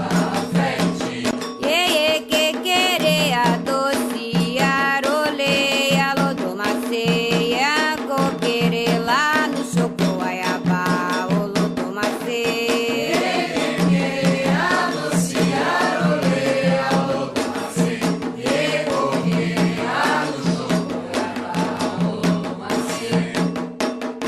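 Candomblé sacred songs for Xangô: voices singing in Yoruba-style chant over a dense, steady rhythm of drums and rattling percussion.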